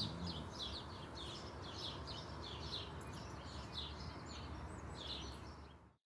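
Small birds chirping, short repeated calls about two a second, over a steady background hiss of outdoor ambience. It all fades out near the end.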